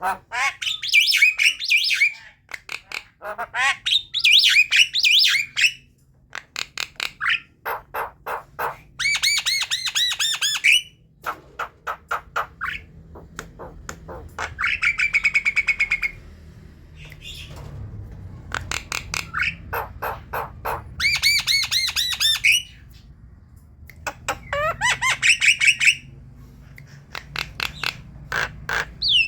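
Javan myna singing a varied chattering song: fast runs of dry clicks alternate with harsh squawks and ringing whistled notes that slide in pitch, with short pauses between phrases.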